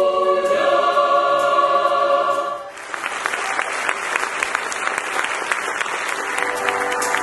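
A mixed choir holds a final chord that cuts off after about two and a half seconds, and the audience breaks into applause.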